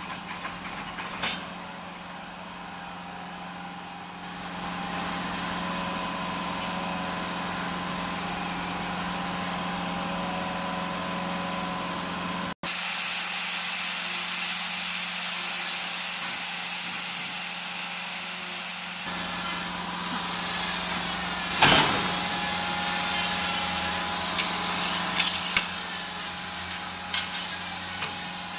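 DST-40C wafer cone baking machine running: a steady low hum with a hiss, joined later by a wavering high whistle that rises and falls. A sharp metallic clank comes about two-thirds of the way through, with a few smaller clanks near the end as the cone mould is worked.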